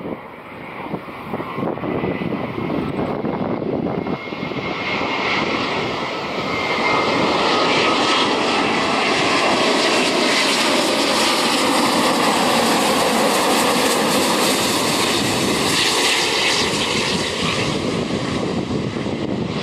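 Airbus A350-941's Rolls-Royce Trent XWB turbofan engines on landing approach: a jet roar with a thin high whine that grows louder as the airliner comes in low and passes close by, stays at its loudest from about eight seconds in, and eases a little near the end.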